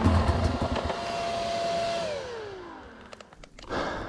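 Sherco enduro motorcycle engine held at high revs with a rough, noisy edge, then the revs falling away over about a second as the throttle closes; a short louder burst of engine sound comes near the end.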